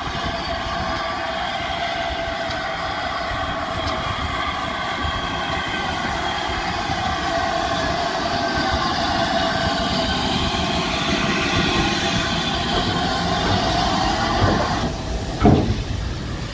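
Great Western steam locomotive running slowly alongside a station platform: a steady noise of steam and wheels that slowly grows louder as it draws near, with a few sharp louder bursts near the end as the engine comes alongside.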